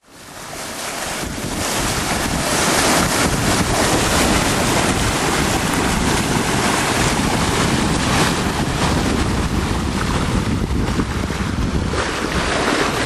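Water rushing along the hull of a sailboat under sail, with heavy wind noise on the microphone; it fades in over the first two seconds.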